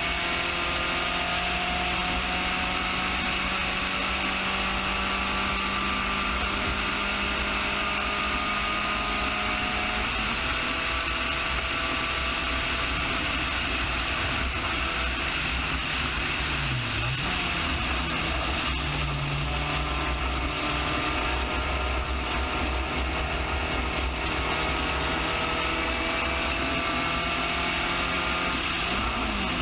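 Spec Racer Ford GEN3 race car's engine running hard at high revs, heard from the cockpit under wind and road noise, its pitch slowly rising and falling as the car pulls down the straights and through the corners.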